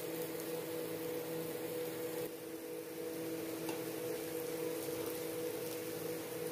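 A steady machine-like hum with a few fixed tones, over a light even hiss. There is one faint tap, likely the spatula against the frying pan, a little past the middle.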